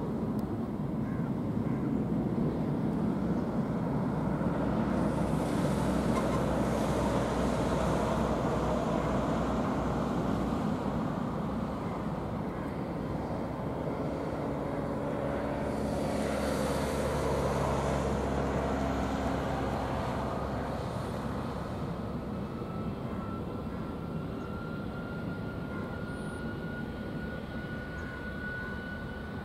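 Boeing 777 jet engines running as the airliner taxis, a steady rumble and hiss that swells twice, with a thin whine rising slowly in pitch over the last several seconds.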